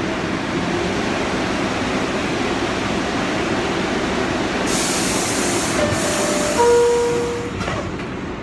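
New York City subway car standing at a station with its doors open, a steady hum of the car and platform all through. About five seconds in comes a short burst of hissing air, then the door-closing chime sounds and the doors shut near the end.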